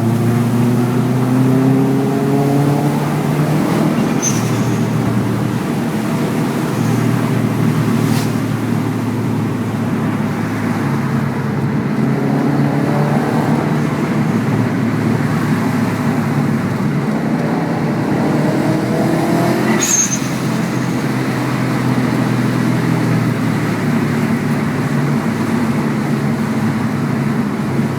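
Subaru WRX's turbocharged flat-four engine pulling hard, its note climbing in several runs through the gears. At two of the gear changes the HKS blow-off valve vents with a short sharp hiss.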